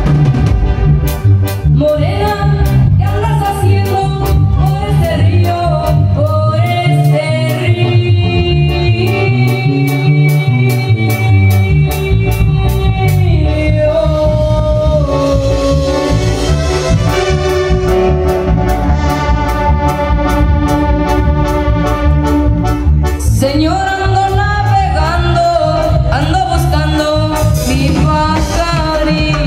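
Live regional Mexican band music, loud and continuous: an electronic keyboard melody with accordion-like tone over a steady drum beat, with singing.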